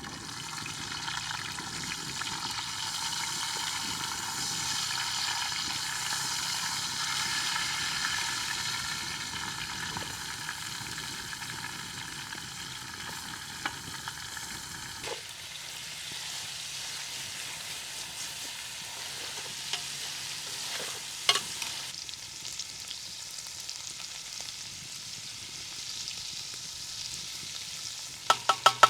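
Food sizzling in hot oil in a frying pan, a steady hiss that drops suddenly to a quieter sizzle about halfway through. A few sharp taps come through, with three close together near the end.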